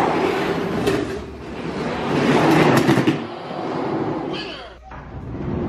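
Spin Master die-cast monster trucks rolling down a plastic race track: a rattling rumble that swells and fades, with a few sharp clicks, dropping briefly near the end.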